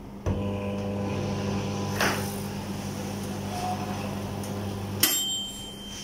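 P80D20 microwave oven running with a steady mains hum, powered on again now that the blown fuse has been replaced with an 8 A one. There is a click about two seconds in, and the hum cuts off about five seconds in with a sharp click and a brief ring.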